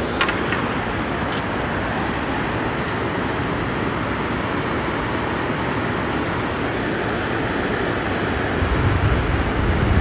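Fast-flowing mountain river rushing steadily, with a low rumble building near the end.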